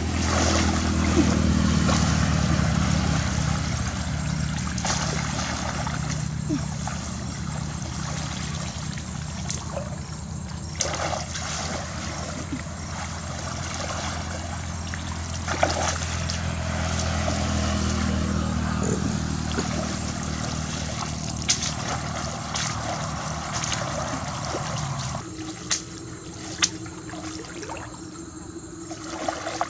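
Muddy pond water sloshing, splashing and trickling as a person wades through it and lifts and dips a basket fishing trap, with sharp splashes now and then. A steady low hum runs underneath and stops a few seconds before the end.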